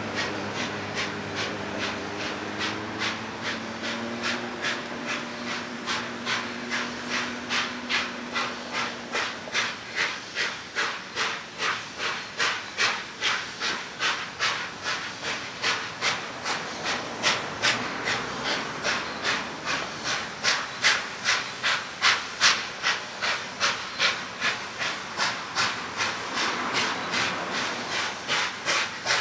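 NSW 32-class 4-6-0 steam locomotive 3237 working hard as it approaches, its exhaust beating in a steady rhythm of about three beats a second that grows louder as it nears. A lower engine drone fades out during the first several seconds.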